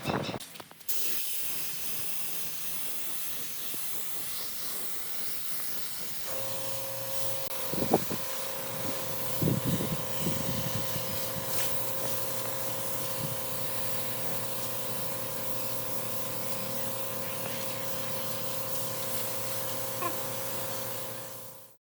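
Steady hissing, joined about six seconds in by a steady machine hum, with a few faint knocks a couple of seconds later; it fades out at the end.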